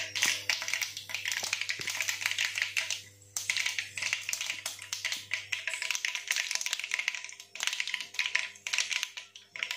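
Mustard seeds spluttering in hot sesame oil in a frying pan: a dense crackle of small pops, with a short lull about three seconds in. The popping is the sign that the oil is hot enough for tempering.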